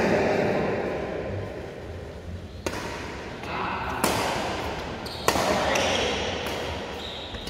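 Badminton rackets striking a shuttlecock during a rally: three sharp hits about a second and a quarter apart, each echoing briefly in the hall.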